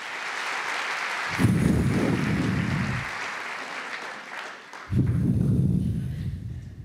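Theatre audience applauding, with two loud low rumbles cutting in, one about a second and a half in and one near the end.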